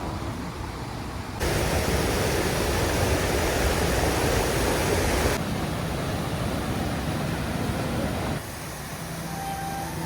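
Waterfall rushing, a steady hiss of falling water whose loudness jumps abruptly up about one and a half seconds in and drops back twice, at about five and a half and eight and a half seconds, as the shots change.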